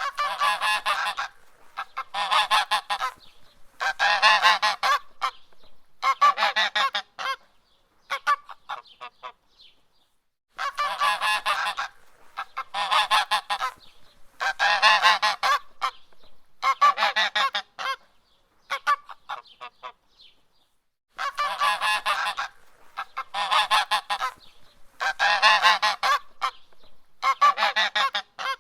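Domestic goose honking angrily: loud harsh honks in bursts of about a second, coming roughly every two seconds, with a pause of a second or two after every few bursts.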